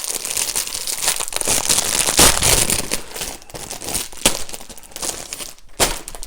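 Plastic packaging from a Lego set being handled and crinkled: a dense crackle of small clicks, loudest about two seconds in, thinning out near the end with a few sharp snaps.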